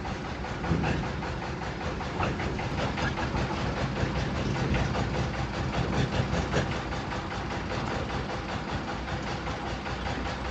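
A large hoof knife shaving horn from a donkey's hoof: scraping cuts every second or two, over a steady low rumble.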